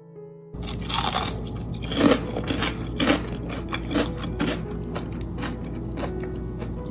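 Crisp deep-fried batter crust on a fish fillet crackling and crunching as the fillet is torn apart by hand, with a run of sharp crunches that are loudest about two and three seconds in.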